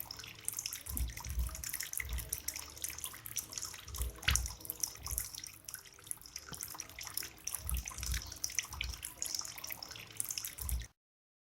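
Water trickling and splashing steadily from a bamboo fountain spout into its basin, with many small drips and splashes and a few low thumps. The sound cuts off abruptly shortly before the end.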